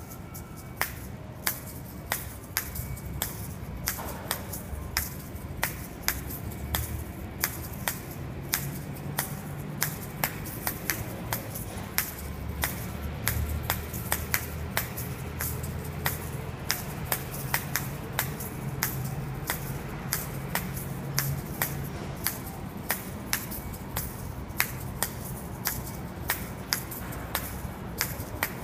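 Asalato (paired shakers on a cord) played in a steady rhythm: sharp clacks of the two hard shells striking each other, with the rattle of the seeds inside.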